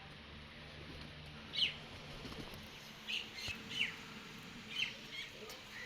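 Small birds chirping: about six short, high, down-slurred chirps, one after another, the first about a second and a half in.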